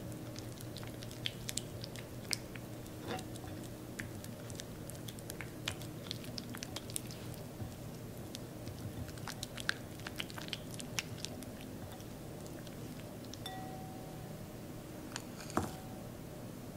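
Silicone spatula stirring and pressing creamy butter in a glass bowl: soft squishing with many small, irregular clicks of the spatula against the glass, over a faint steady low hum. A louder knock comes near the end.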